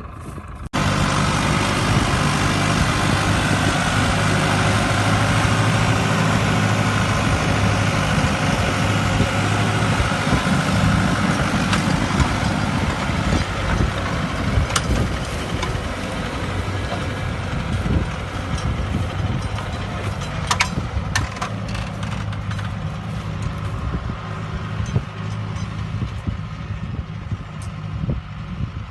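Case JX100 tractor's diesel engine running steadily under load while pulling a plough, with a few sharp clicks and rattles near the middle.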